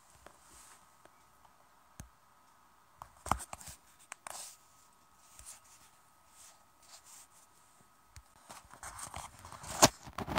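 Faint, scattered thuds and rustles from a horse moving about on the sandy footing of a round pen, with a few sharper knocks near the end.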